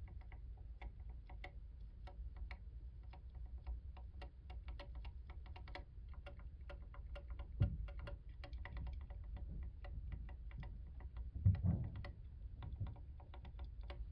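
Linear mechanical keyboard switches being pressed and released key by key, a few sharp clacks a second in an irregular run. Two duller, louder thumps come about seven and a half and eleven and a half seconds in.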